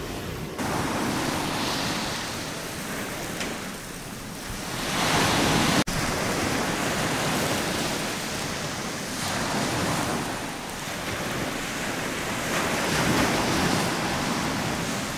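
Ocean surf breaking on the shore, swelling and easing every few seconds, with a brief sharp break about six seconds in.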